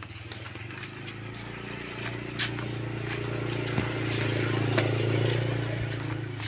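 A small engine running at a steady pitch, swelling louder through the middle and easing off near the end, with light footsteps crunching on dry leaves.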